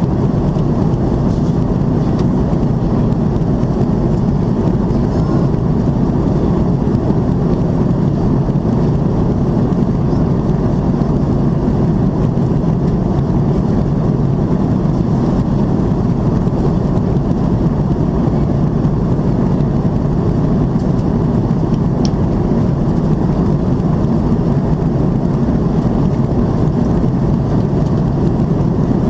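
Cabin noise of an Airbus A330-300 in its climb: a steady, even drone of engines and airflow, deepest and strongest in the low range.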